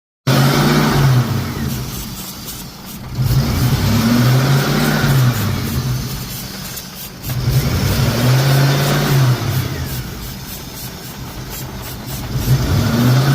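Car engine being revved four times, each rev rising, held for a second or two, then dropping back toward idle.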